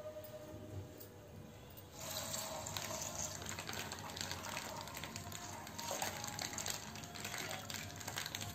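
Milk poured from a plastic pouch into a wide pan, a steady splashing pour that starts suddenly about two seconds in.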